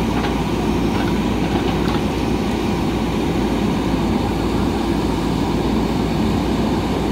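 JCB 3DX backhoe loader's diesel engine running steadily while the backhoe arm swings, a low, even rumble. A few faint knocks come in the first couple of seconds.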